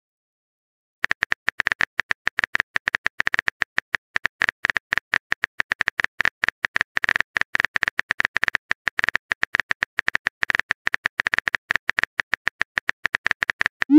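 Simulated phone-keyboard key-click sound effects as a text message is typed, a fast, uneven stream of short taps that starts about a second in.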